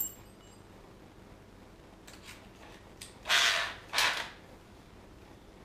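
Two short bursts of a hammer drill boring into a concrete floor, about three seconds in, as the next anchor hole is started. A sharp metallic clink comes right at the start.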